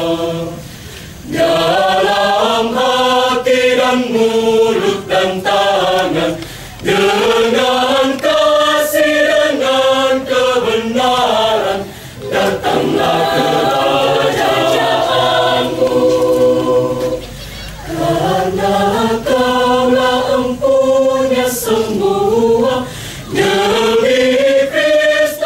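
Church choir singing a hymn in Indonesian in several voice parts, long sung phrases broken by brief pauses for breath about every five seconds.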